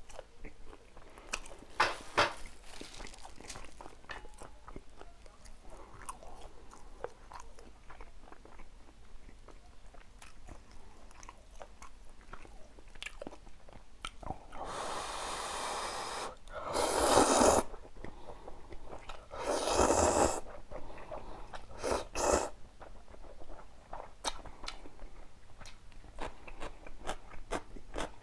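Close-up eating sounds: a person chewing with many small wet mouth clicks. A few louder, longer noisy bursts come in the second half.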